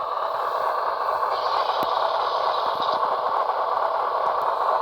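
HO scale Dash 9 model locomotive's onboard sound decoder playing its diesel engine running sound through the small speaker, a steady drone, with a higher hiss joining briefly about a second in.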